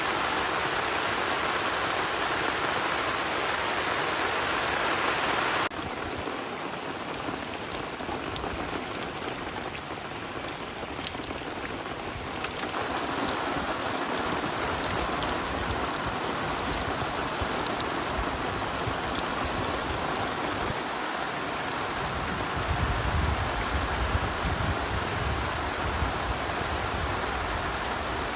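Steady rain falling, a dense even hiss that drops suddenly about six seconds in and builds again later, with a low rumble joining in over the last several seconds.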